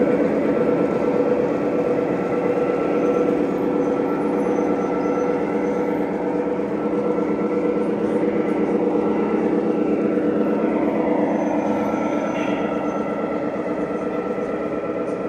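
Model train running on an exhibition layout: a steady mechanical hum with a few held tones over a fine rattling noise.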